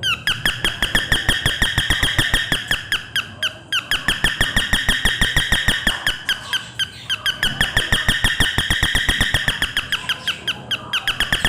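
Electric doorbell ringing continuously: rapid repeated strikes on a bell, each ringing at two steady high tones, with a few short breaks.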